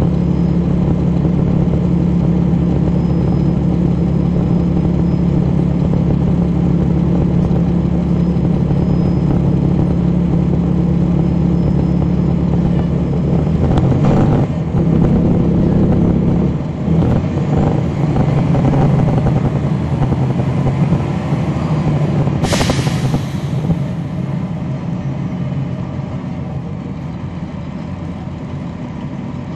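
Cummins ISL9 diesel engine of a NABI 40-foot transit bus running, heard from the rear seats, its steady low note changing about halfway through. A short, sharp hiss of compressed air about two-thirds of the way in.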